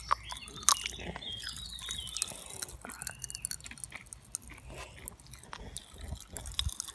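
Pop Rocks popping candy crackling in a child's mouth: a rapid, irregular scatter of tiny snapping pops.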